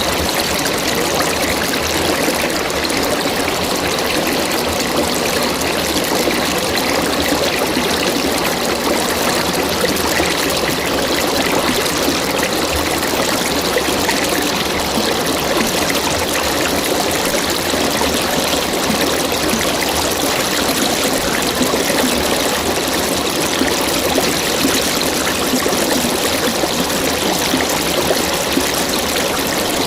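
River water flowing, an even, unbroken rushing sound.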